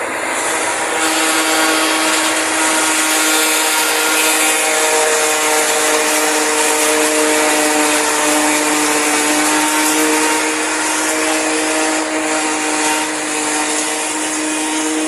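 Dania D5500 forage harvester running under load while chopping maize: a steady engine drone with a dense hiss that swells about a second in.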